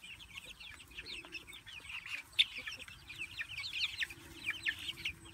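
A small flock of young chicks peeping, many short falling peeps overlapping without a break. One sharp, louder click comes about two and a half seconds in.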